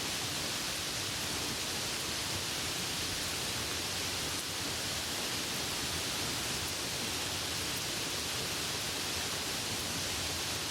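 Steady rushing of water, an even hiss with no breaks or distinct events.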